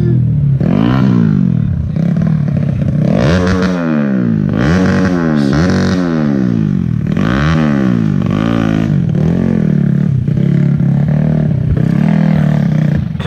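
Underbone motorcycle engine revving again and again, its note rising and falling every second or two.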